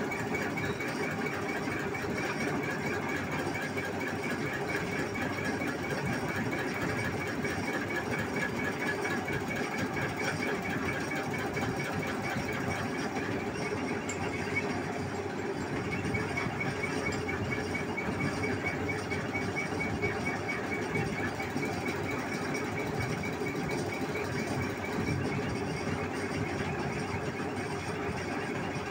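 Common-rail diesel injector test bench running with a steady, rapid mechanical chatter as a repaired VW Polo diesel injector is tested on it.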